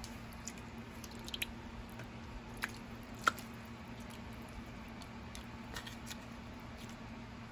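A ladle stirring vegetable soup in a skillet: soft sloshing of broth and vegetables, with a few light clicks of the ladle against the pan, the sharpest about three seconds in. A steady low hum runs underneath.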